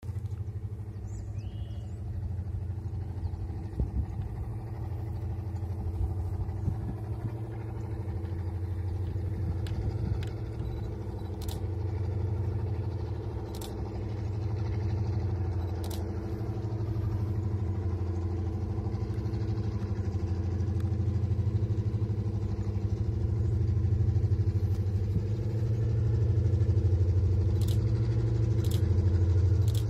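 Two EMD SD38 diesel locomotives hauling a loaded ballast train, heard from a distance as a steady low engine drone with a humming tone that slowly grows louder as they approach. A few faint, sharp high ticks come through now and then.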